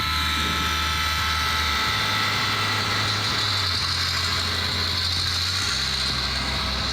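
Sound decoder of a Bachmann N scale EMD GP38-2 model locomotive playing recorded EMD diesel engine sound. The engine runs steadily, and its low note steps to a different pitch about two seconds in and again near six seconds. A steady hiss runs underneath.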